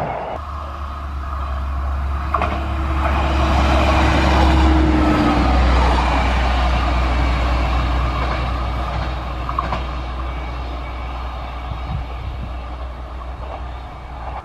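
Stadler GTW 2/6 diesel railcar passing and running off along the track: a steady low diesel hum with a held whine for a few seconds, loudest about four to six seconds in, then slowly fading as it goes away.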